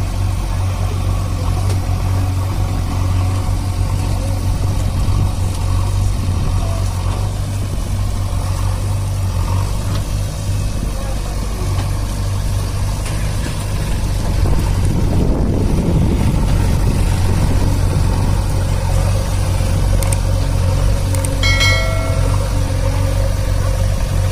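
Diesel engines of a tractor and a JCB 3DX backhoe loader running together, a steady low drone, swelling louder for a couple of seconds about fifteen seconds in as the engines are worked harder to free the loaded tractor and trolley from wet sand.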